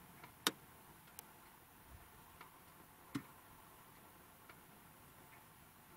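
A few sharp clicks at uneven intervals over a faint steady hiss, the loudest about half a second in and another just after three seconds.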